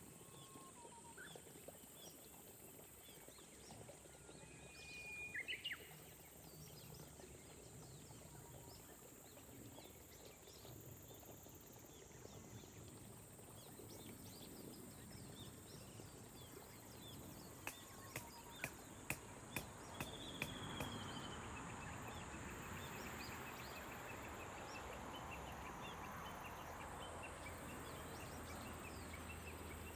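Soft rain with a steady high insect drone and a few short bird calls. About two-thirds through comes a quick run of sharp clicks, about two a second, after which the rain hiss grows louder and stays.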